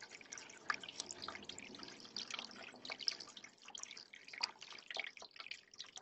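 Small rock waterfall fountain trickling into a shallow basin: a faint, steady, irregular patter of drips and small splashes.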